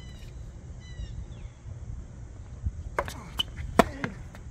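Tennis ball struck by a racket on a hard court: several sharp pops from about three seconds in, the loudest near the end as the near player hits a forehand. A couple of short high squeaks in the first second.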